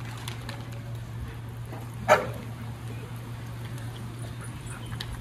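A dog barks once, sharply, about two seconds in, over a steady low hum.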